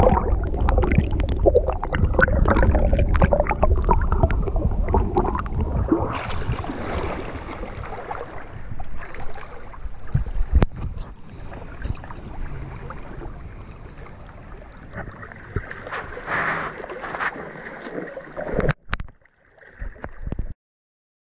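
River water splashing and sloshing around a camera held at the surface by a swimmer. It is loudest for the first several seconds, then quieter, with a sharp click partway through and a few knocks before it cuts off.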